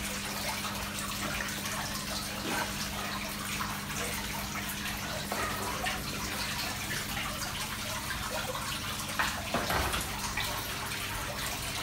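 Water running and splashing steadily from the bamboo spouts of an indoor koi pond waterfall, over a steady low hum. A couple of thumps near the end.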